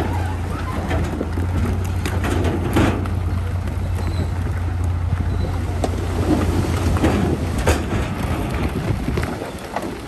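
Diesel engine of heavy earthmoving machinery running with a steady low drone, with scattered knocks over it. The engine sound drops away near the end.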